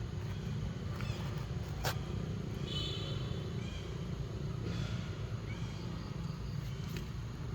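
Baby monkey giving a few short, high squeaky calls, the clearest about three seconds in, over a steady low rumble. A sharp click sounds about two seconds in.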